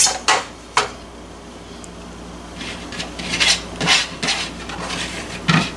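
Squirrel pieces being handled into a stainless steel steamer basket: a few sharp metal clicks in the first second, then short rubbing and scraping sounds, the loudest near the end.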